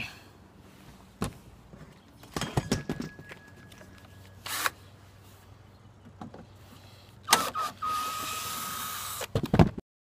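Cordless drill/driver backing out the shroud bolts of an RV rooftop air conditioner: a brief faint run near the start, then a louder two-second run with a steady whine in the second half, with knocks and clicks of the drill and bolts being handled.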